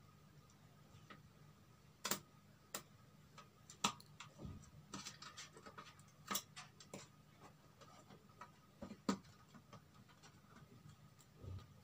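Irregular light clicks and taps as a new LED backlight strip is handled and pressed by hand onto a TV's metal back panel, with a few sharper knocks among softer handling noise over a faint steady hum.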